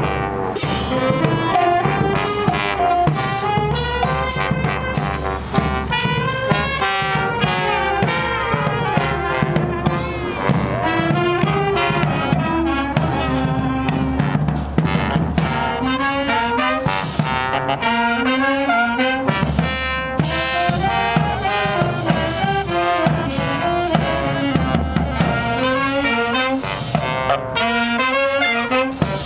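Brass street band playing live on the move: trumpets, trombone and saxophones carry the tune over a marching bass drum and cymbals keeping a steady beat.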